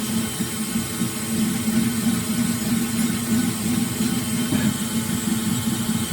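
CNC milling machine running a drilling cycle in aluminium: a steady machine hum with a hiss over it.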